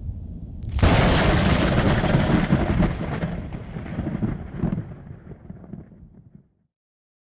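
A thunderclap: a low rumble builds, then a sharp crack about a second in that rolls on and fades away over the next five seconds.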